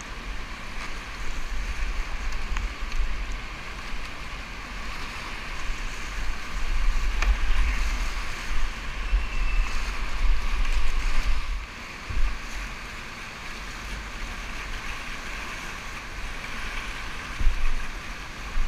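Fast, high-water whitewater river rushing and churning steadily around a kayak, swelling and easing. A low rumble of wind buffeting the action camera's microphone runs underneath.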